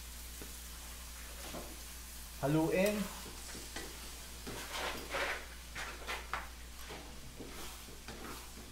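A wooden spatula stirring and scraping a thick tomato spaghetti sauce with sliced hotdogs around a steel wok, a run of irregular wet scrapes from about a third of the way in, over the low sizzle of the pan on the heat.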